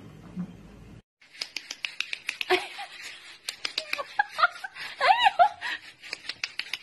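Small grey puppy giving high, squeaky yips that rise and fall, several of them about four to five seconds in, over a quick run of clicks.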